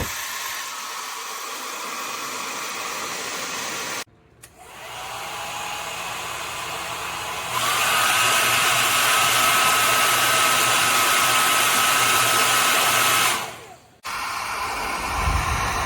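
AINA ionic hair dryer running with a steady rush of air. It cuts off, spins back up with a faint rising whine, and about seven and a half seconds in jumps to its higher, louder speed with a thin motor whine. It winds down and stops near the end, then runs again.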